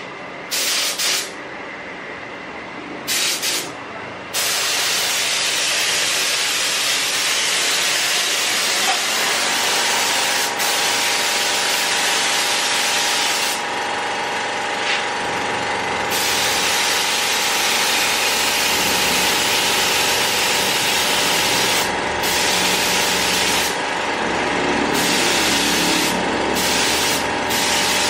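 Gravity-feed air spray gun hissing as it sprays gold paint, thinned 1:1, onto a motorcycle alloy wheel. First a few short trigger bursts, then near-continuous spraying with brief pauses. A steady mechanical hum sits faintly underneath.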